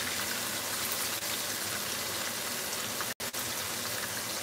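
Thick pork chops frying in hot grease in a skillet, a steady sizzle that breaks off for an instant about three seconds in.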